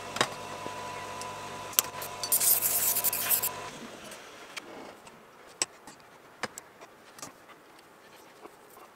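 A small electric power tool's motor running with harsh bursts of grinding or brushing against metal, stopping suddenly about four seconds in. Light clicks and clinks of hand tools being handled and set down follow.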